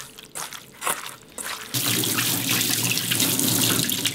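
Brief squishing of hands mixing seasoned raw chicken pieces in a metal bowl, then, under two seconds in, a kitchen tap starts running steadily into a stainless steel sink as hands are rinsed under the stream.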